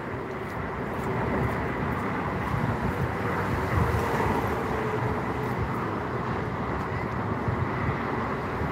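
Steady outdoor rumble of wind on the microphone mixed with road traffic on the highway bridge alongside, with a faint engine tone passing through the middle.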